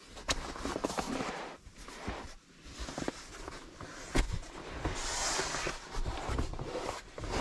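A KingCamp Classic Light inflatable sleeping mat and a fabric pillow being handled and laid out inside a car: rustling of the mat's fabric with soft thumps and a couple of sharper knocks, one just after the start and one about four seconds in.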